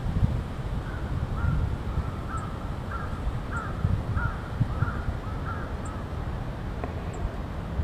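A wild bird calling in a run of about nine short, harsh notes, roughly two a second, that stop about six seconds in.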